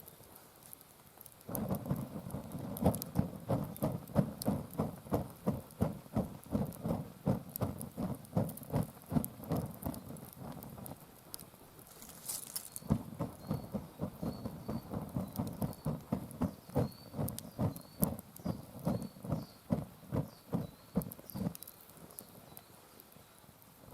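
A hand-held uchiwa fan being waved quickly over bonfire ash, each stroke a short low whooshing puff of air, about three strokes a second. The fanning pauses briefly about halfway through, then starts again and stops a few seconds before the end.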